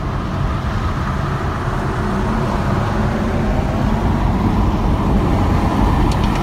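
Steady road and engine noise of a car at highway speed, heard inside the cabin.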